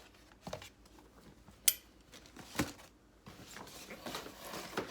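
Packaging for the next pair of shoes being handled: a few light knocks and one sharp click, then paper rustling near the end.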